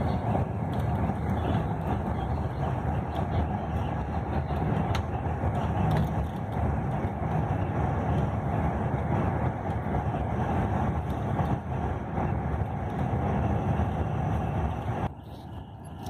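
Steady road and engine noise inside a long-distance coach at highway speed. Near the end it drops abruptly to a quieter, duller rumble.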